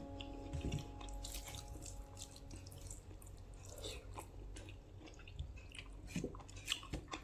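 Faint chewing with scattered small clicks, as of someone eating chicken stew.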